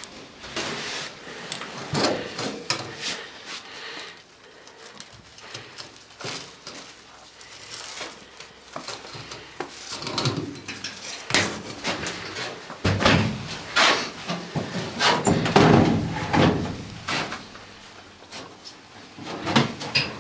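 Footsteps crunching through snow with the rustle and knock of carried gear, uneven and bunched, busiest for a few seconds past the middle.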